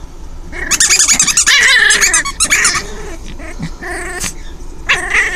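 Five-week-old puppy growling in play, high-pitched and wavering. A long run of growls starts about half a second in and lasts about two seconds, with shorter bursts near four and five seconds.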